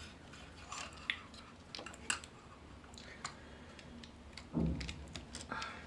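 Scattered small clicks and taps of the hard plastic parts of a Takara Masterpiece MP-25 Tracks transforming robot figure being turned and fitted by hand. A brief low hum of a voice comes about four and a half seconds in.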